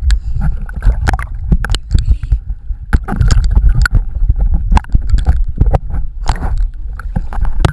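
Pool water sloshing and splashing around a waterproof action camera at the surface, with a heavy low rumble and frequent short knocks as the camera is handled and bobs in and out of the water.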